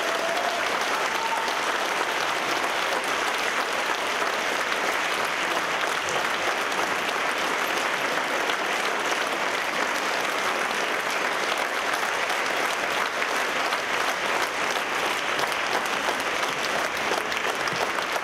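Audience applauding steadily, joined by orchestra musicians clapping, with dense, even clapping that holds at the same level throughout.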